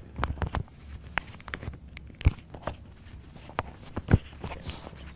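Clip-on lavalier microphone being fastened to a shirt and tie: irregular rustling, scraping and clicking of handling noise, with two louder knocks about two seconds and four seconds in.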